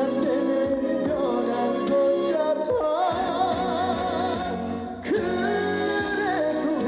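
Male trot singer singing a slow ballad live over band accompaniment, holding two long notes with vibrato, the second starting just after a brief dip about five seconds in.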